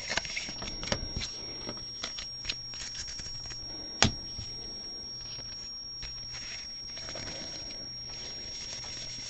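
Baseball trading cards handled and slid against one another, with scattered light clicks and rustles and one sharper click about four seconds in.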